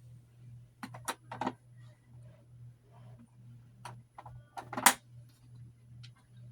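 A handful of sharp clicks and knocks of small skincare containers being handled and set down, a quick cluster about a second in and the loudest knock about five seconds in, over a steady low hum.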